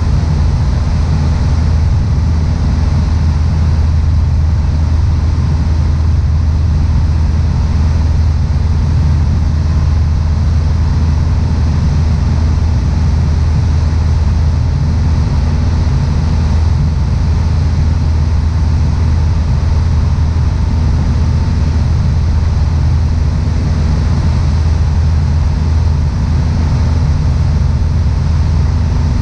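Low, steady drone of a Piper PA-28-161 Warrior II's four-cylinder Lycoming engine and propeller, heard inside the cockpit in level flight, unchanging throughout.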